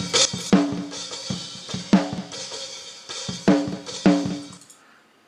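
Recorded snare drum hits played back from a DAW: several sharp cracks, each with a short ringing decay. The playback stops less than a second before the end.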